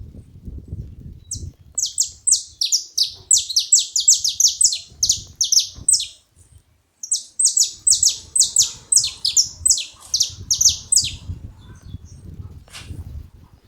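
Saffron finches calling: rapid runs of sharp, high chirps, each sliding downward in pitch, several a second, in two bursts of a few seconds each with a short break about six seconds in.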